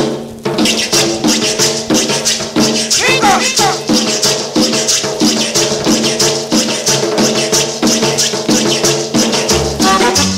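Cumbia song playing: the instrumental opening, with a steady percussion rhythm and a keyboard melody, and a low bass line coming in near the end.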